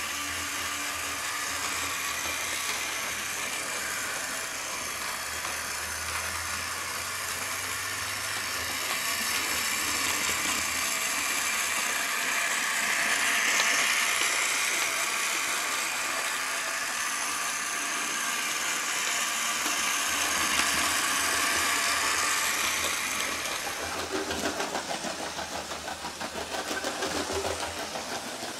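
Toy Lego train running on blue plastic track: a steady whirring from its small electric motor with the rattle of plastic wheels on the rails, loudest about halfway through. In the last few seconds it turns into a fast, even clicking.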